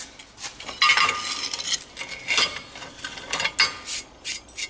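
Aluminum bar stock and metal parts being handled on a steel drill press table: irregular knocks, scrapes and clinks, with a brief ringing clink about a second in.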